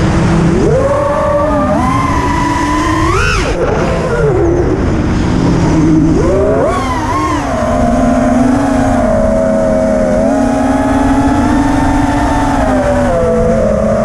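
FPV racing quadcopter's four T-Motor F60 Pro II brushless motors and 5-inch three-blade propellers whining, the pitch rising and falling with the throttle. A sharp rise and fall comes about three seconds in, then the pitch holds steadier and lower through the second half, with wind rush on the onboard camera's microphone underneath.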